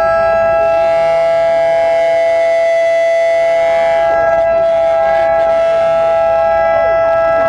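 Civil-defence siren sounding one loud, steady tone that holds its pitch without rising or falling. It is the memorial siren marking the anniversary of the Battle of Five Days in Semarang.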